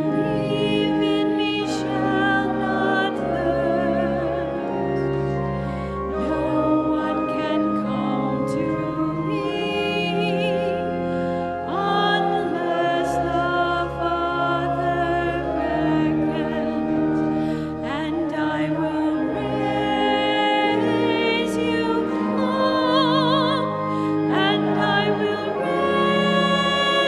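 Church hymn: a singer holding long notes with a wide vibrato over an accompaniment of sustained low notes that change every second or two.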